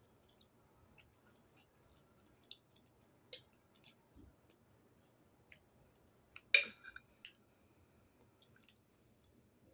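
Quiet eating noises close to the microphone: scattered small mouth clicks and chewing on ramen noodles, with a louder short sound about six and a half seconds in.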